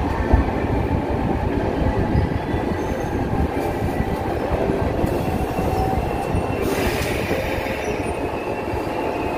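JNR 185 series train rolling slowly along a platform: a steady low rumble of wheels on rail with a faint wheel squeal, and a short hiss about seven seconds in.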